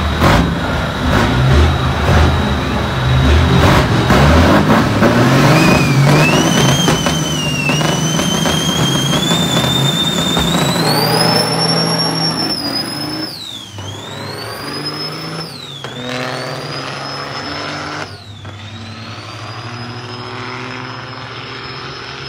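Kenworth W900's Caterpillar C15 diesel pulling hard from a launch with a loaded flatbed trailer, a high whine climbing with the revs. Then come three upshifts about two seconds apart, each a sudden drop in pitch followed by another climb, growing fainter as the truck pulls away.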